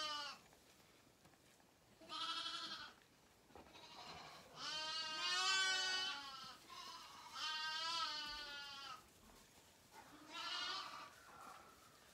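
A lamb bleating four times, a second or two apart, in wavering calls; the second and third calls last about two seconds each, and the second is the loudest.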